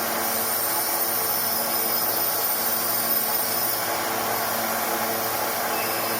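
Machine-shop machinery running steadily: an even mechanical hum with a held whining tone over a bed of hiss.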